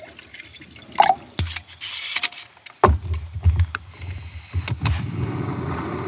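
Water poured from a pot into an insulated cooking cup, among several sharp clicks and knocks of camp cookware being handled.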